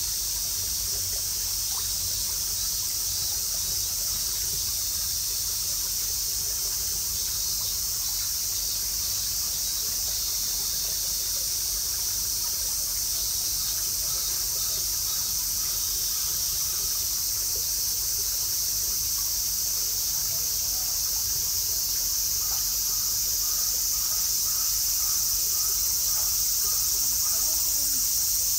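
Cicadas droning in a steady, high-pitched buzz that swells slightly toward the end.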